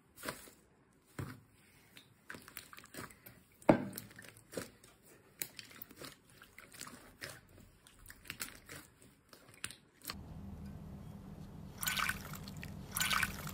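Slime being pressed, squeezed and kneaded by hand, giving wet squelches and many short pops and clicks. About ten seconds in a steady low hum comes in under louder squishes.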